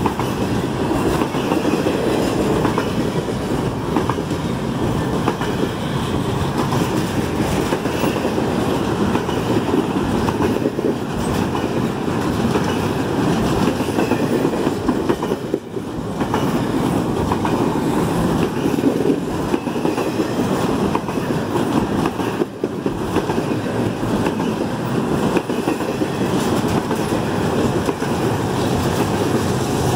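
Double-stack intermodal freight train's well cars rolling past close by: a steady rumble and clatter of steel wheels on the rails, dipping briefly twice.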